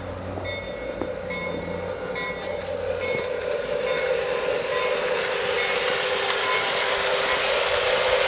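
Lionel LionChief RS-3 model diesel locomotive running with its freight train, a steady motor-and-gear hum and track noise growing louder as it comes closer. A few short, repeated high tones sound in the first few seconds.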